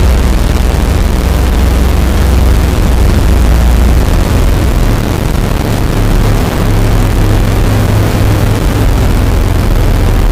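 A loud, steady low engine rumble with a heavy noisy wash over it; the low drone steps up in pitch about halfway through.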